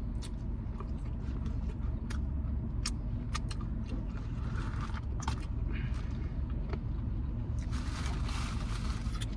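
Steady low rumble of a car cabin with the engine running, under scattered clicks and crunches of someone chewing fried chicken wings, with a longer crackly stretch near the end.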